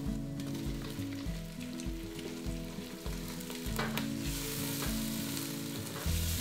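Chopped tomatoes sizzling as they fry with onions in a pot of hot oil, stirred with a wooden spoon, with a few light clicks of the spoon. The sizzle grows louder about two-thirds of the way in. Soft background music with steady low notes runs underneath.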